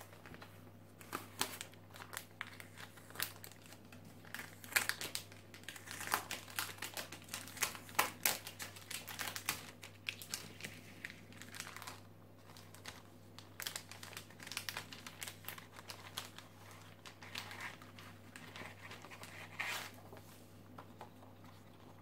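Clear plastic sleeve crinkling in irregular crackles as a paper photo print is slid out of it by hand, with a lull partway through.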